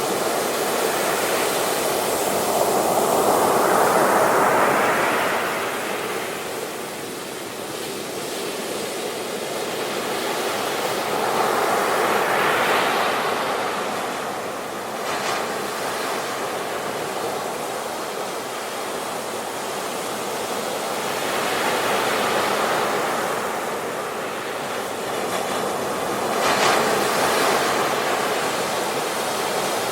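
Sea waves breaking on the shore: the surf swells and falls back every eight to ten seconds, with a sharper splash about halfway through and another near the end.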